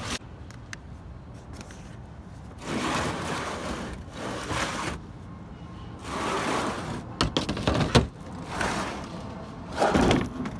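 Plastic microgreen flats being slid across the bed of a pickup truck: several scraping slides, with a few sharp knocks about seven to eight seconds in.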